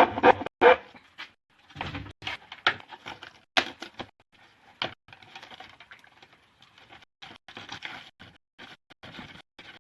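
Irregular clicks, snaps and scrapes of a plastic dustpan being cut and handled, most frequent in the first few seconds.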